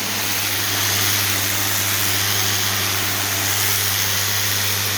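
Pressure washer running steadily: a constant low hum under the hiss of its high-pressure water jet spraying across slate pavers.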